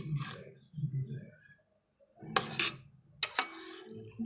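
Steel spoon scraping and knocking against a stainless steel pot while stirring curdled milk, gathering the vinegar-set curds in the whey. A few separate scrapes and clinks, the loudest in the second half.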